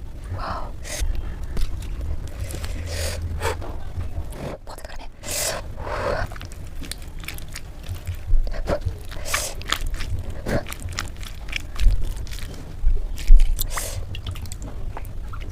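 Close-miked mukbang eating of fried eggplant slices (baigan bhaja): chewing and biting with irregular sharp clicks, soft crunches and occasional scraping, and a few louder bites near the end.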